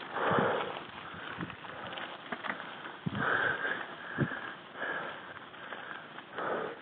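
A mountain biker breathing hard while climbing, loud puffs of breath every second or two, over the crunch of tyres on loose gravel and small knocks from the bike.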